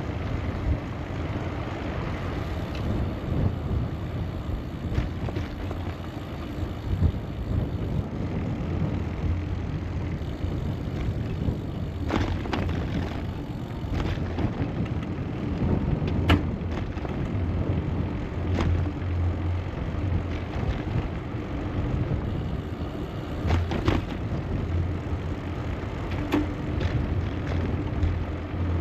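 Steady rumbling noise of riding a bicycle on a trail, with tyres rolling and air rushing past. A few sharp clicks or rattles come through, the plainest about halfway in.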